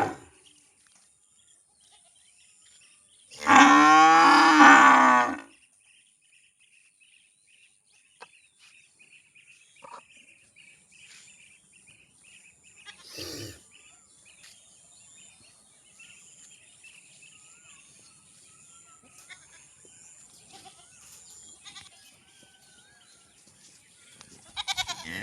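A cow mooing once, a loud call of about two seconds starting about three seconds in, then a short, much fainter call about halfway through. Between the calls it is quiet apart from faint high chirping.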